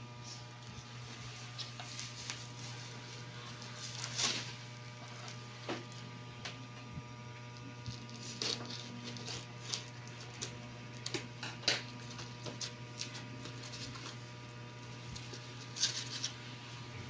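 Scattered light clicks and rustles of small items being handled, over a steady low electrical hum.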